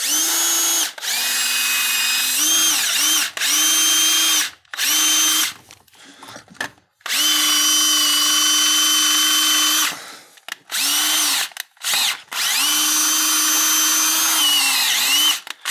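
Cordless DeWalt 20V drill boring out a stripped cylinder-head bolt hole in the engine block through a Time-Sert thread-repair drill guide. It runs in repeated bursts of one to three seconds with short pauses, and its whine sags in pitch several times as the bit loads up in the metal.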